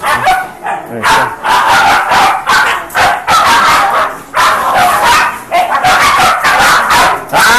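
Belgian Malinois puppies barking in a fast, nearly unbroken run of loud, high-pitched barks that stops abruptly at the end.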